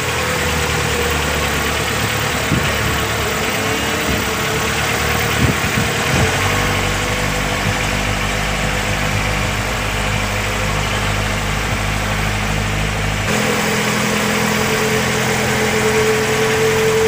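Outrigger fishing boat's (bangka) engine running steadily under way, with water rushing along the hull and outrigger floats.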